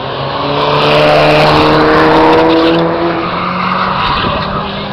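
A race car accelerating past on a circuit. Its engine note rises steadily in pitch for about three seconds and is loudest in the middle, then drops back to a lower, steadier engine sound.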